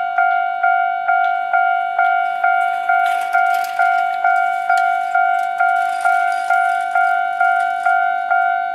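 Japanese level-crossing warning bell ringing its repeated 'kan-kan' strike, a bit over two strikes a second at an unchanging pitch: the crossing is activated, a tram is approaching or passing. A rushing noise joins it from about three seconds in and fades near the end.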